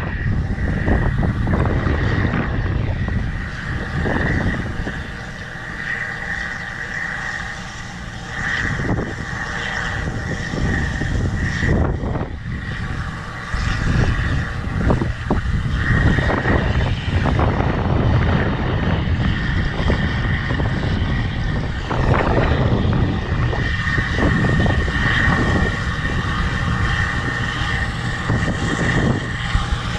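Case 2188 combine harvester running steadily: a low drone with a steady high whine over it. Wind buffets the microphone in gusts.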